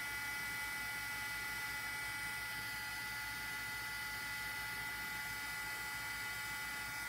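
Embossing heat tool running steadily, its fan blowing hot air in a constant whirring hiss with a faint steady high whine, as it melts embossing powder on cardstock.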